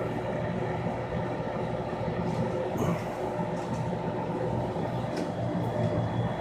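Aquarium pump running: a steady low hum and rumble.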